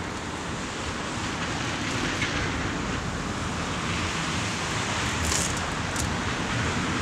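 LVS-86K-M articulated tram rolling slowly over snow-covered track: a steady low rumble with a hiss over it, growing slightly louder as it comes closer. Two short high-pitched squeaks sound near the end.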